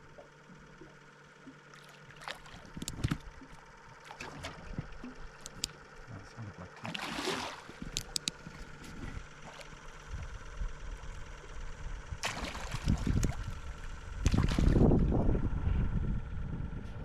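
Water gurgling and splashing around a small boat, with scattered knocks and clicks from handling gear and a faint steady hum underneath. Louder rushes of water noise come about seven seconds in and again twice in the last few seconds.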